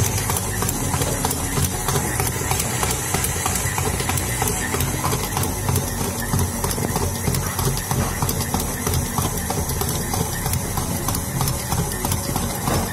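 KitchenAid stand mixer motor running steadily while its hook kneads bread dough in the steel bowl, with many small knocks running through the hum.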